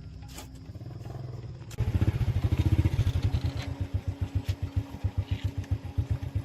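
Restored ZS1115 single-cylinder diesel engine running with a quick, even beat, getting clearly louder about two seconds in.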